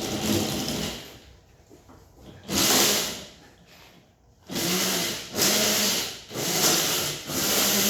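Electric mini dirt bike with a 60 V motor on a 48 V controller, its motor and chain drive whirring in repeated short bursts of throttle, several of them close together in the second half.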